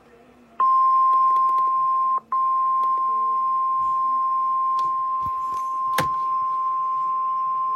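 NOAA Weather Radio warning alarm tone: a loud, steady single tone near 1 kHz. It starts about half a second in, breaks off for an instant about two seconds in, then runs on. It is the alert that signals a warning message is about to be read. A single sharp click comes about six seconds in.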